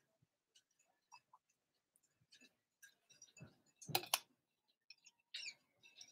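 Quiet handling and drinking sounds from a metal water bottle: a few faint clicks, then a short cluster of knocks about four seconds in.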